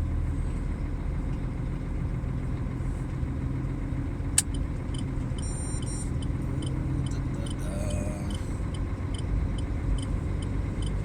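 Truck engine running steadily, with a sharp click about four seconds in and then short electronic beeps repeating about twice a second.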